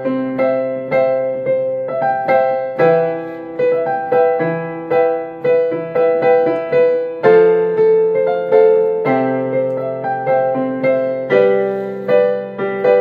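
Instrumental break in a worship song: a single instrument playing broken chords, about two notes a second, each struck and ringing away, with no singing.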